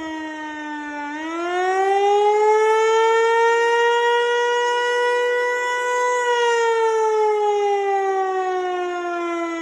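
Federal Signal Eclipse 8 outdoor warning siren sounding a wail on its test. The tone bottoms out about a second in, climbs and holds high for several seconds, then slides slowly back down near the end.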